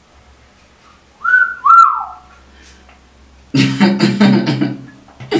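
A two-note wolf whistle: a quick rise to a held note, then a rise and a downward swoop. From about three and a half seconds in comes a louder stretch of music.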